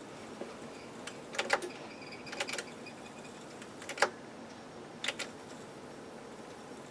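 The power switch of an Akai AM-2800 integrated amplifier being worked, giving four short bursts of crackling clicks about a second apart. The switch is faulty and arcs inside when the amp is turned on.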